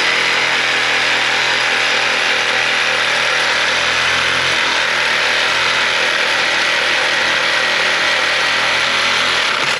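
Cordless reciprocating saw running at a steady fast speed, its blade sawing through stucco along a window frame. The cut stops suddenly at the very end.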